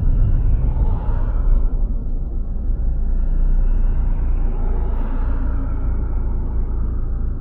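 Low road rumble of engine and tyres heard from inside the car's cabin, easing gradually as the car slows to a near stop in queued traffic.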